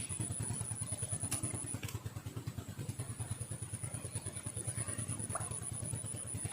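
A small engine running steadily at idle with a fast, even low pulse, over a thin steady high-pitched tone.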